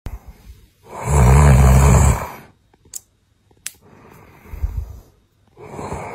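A person snoring. One loud, deep snore comes about a second in and lasts over a second. It is followed by two short clicks, a quieter breath out, and the next snore starting near the end.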